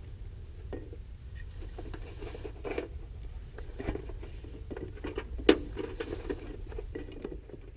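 Hose clamps being tightened with a hand tool on the hose fittings of an aluminum power steering tank: irregular small metal clicks and scrapes, with one sharp click about five and a half seconds in, over a steady low hum.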